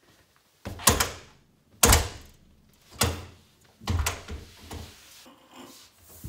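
A practice-room door being shoved hard against its frame, banging about five times, roughly once a second. The latch will not catch and the door springs back open each time.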